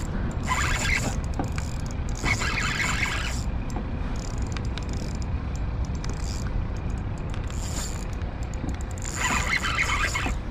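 Spinning reel being cranked in three short spurts of about a second each, two in the first few seconds and one near the end, over a steady low rumble.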